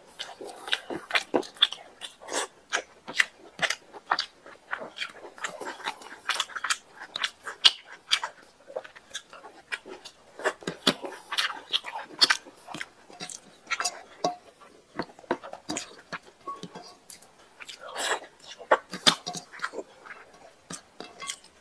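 A person chewing mouthfuls of rice and chicken curry eaten by hand: a dense, irregular run of wet smacking clicks.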